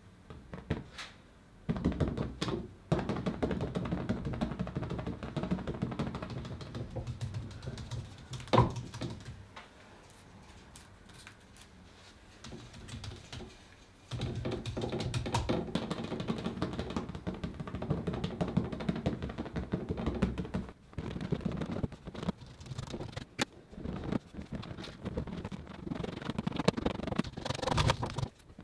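Rapid soft tapping and scuffing of paint being dabbed onto a stretched canvas on a wooden easel. It comes in two long stretches with a quieter pause between them, and there is one sharper knock against the canvas or easel near the middle.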